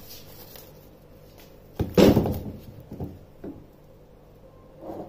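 Kitchen things handled on a counter: a thump and a loud rattle about two seconds in, then a few lighter knocks.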